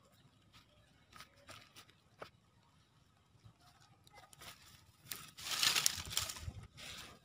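Dry leaves and small plants rustling and crackling as they are disturbed: a few light crackles, then about five seconds in a louder stretch of rustling that lasts about two seconds.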